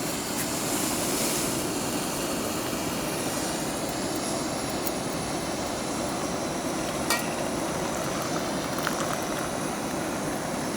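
Pot of water at a rolling boil on a camping stove: a steady rushing noise from the burner and the boiling water, with a faint click or two about two-thirds of the way through.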